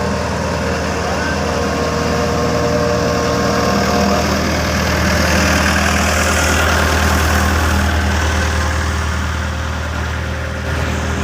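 Engine of road-paving machinery running steadily at a low, even hum.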